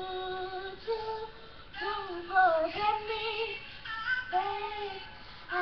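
A woman singing a slow ballad melody, holding long notes in short phrases with small bends in pitch.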